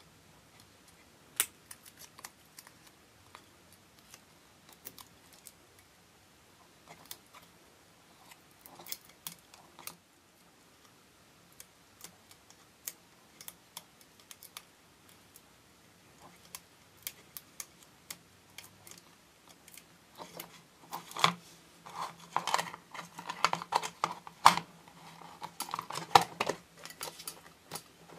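Small scattered clicks and ticks of fingers working fine wire against a black plastic display base. In the last several seconds these thicken into busier, louder handling and rubbing noises.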